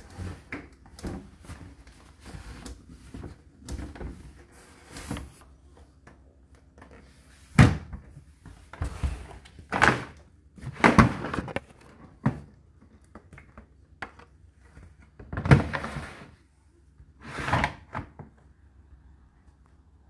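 Light clicks, then a string of sharp knocks and thuds from an Indesit condenser tumble dryer's door and plastic panels being handled, over a faint low hum. The loudest knocks come in the second half.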